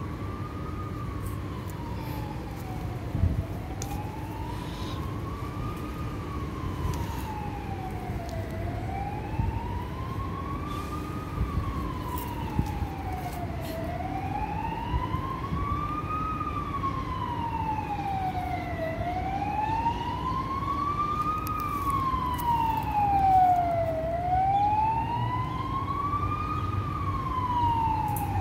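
A siren wailing, rising and falling slowly in pitch about once every five seconds and growing a little louder toward the end, over a steady low background rumble.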